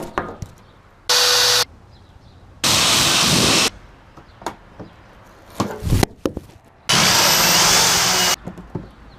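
Power drill drilling out a gumball machine's metal lock, run in three short bursts, the third the longest. Between the second and third bursts there are a few sharp knocks, the strongest a clunk about six seconds in.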